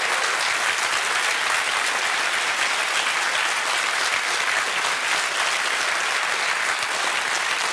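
A studio audience applauding, a dense, steady clapping that holds at the same level.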